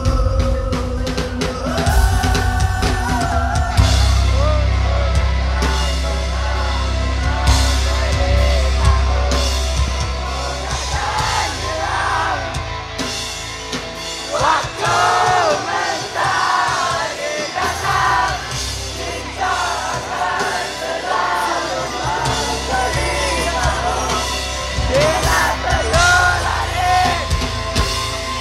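Live rock band playing loud, with electric guitars, drums and singing, and the crowd yelling and whooping along. About halfway through, the heavy bass drops out for a few seconds, leaving the singing more exposed, and then partly comes back.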